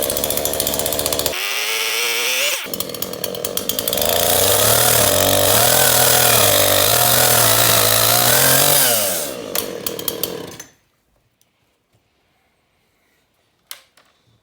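Chainsaws running and revving, in several short stretches that change abruptly, with pitch rising and falling; the sound cuts off about eleven seconds in. A single click follows near the end.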